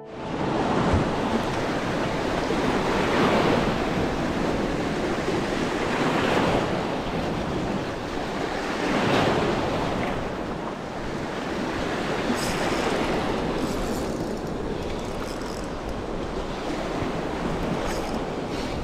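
Sea waves breaking on the shore, the surf swelling and falling every few seconds, with wind buffeting the microphone.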